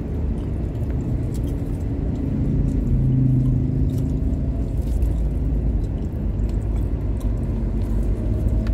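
Steady low rumble of a moving road vehicle's engine and tyres, with an engine hum swelling to its loudest a little past the middle.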